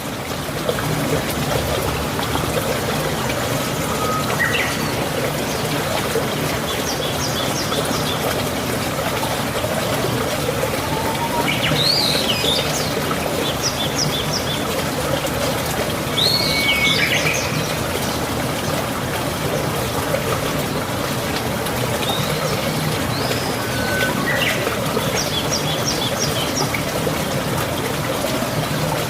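Running water, like a stream, with birds calling over it every few seconds: short runs of quick high notes and some rising-and-falling calls. The water fades in during the first second.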